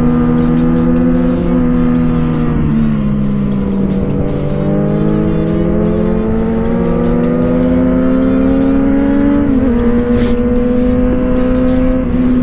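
Sport motorcycle engine pulling hard uphill over steady wind rush. Its pitch dips in the first few seconds, then climbs steadily under acceleration and steps down at a gear change about nine and a half seconds in.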